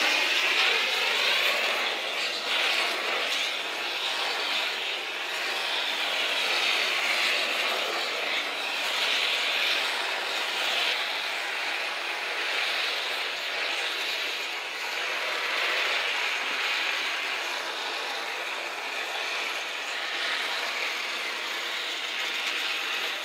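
Hose-fed gas torch burning with a steady rushing hiss while its flame heats waste oil brushed onto the wooden boat planks so that it soaks in.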